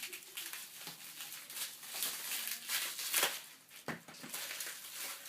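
Plastic packing wrap and tape being pulled and peeled off, with irregular crinkling and tearing rustles.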